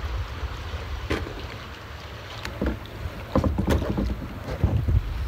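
Water sloshing and lapping against a kayak's hull, with irregular short splashes, as the kayak moves among wooden dock pilings. Wind buffets the microphone with a steady low rumble.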